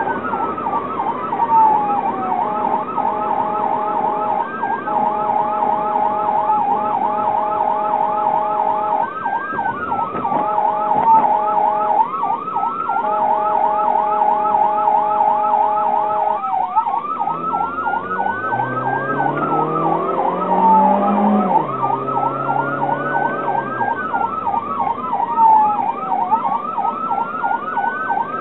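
Emergency warning siren on a responding vehicle, a fast yelp cycling about four times a second with a slower wail rising and falling over it. Through the first half, a steady two-note horn sounds in long blasts at traffic that fails to yield. An engine revs up and back down about two-thirds of the way through.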